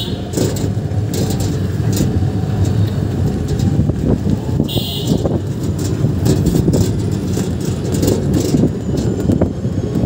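Auto-rickshaw in motion heard from the passenger seat: its engine running with road rumble and cabin rattles, and a short high horn beep about five seconds in.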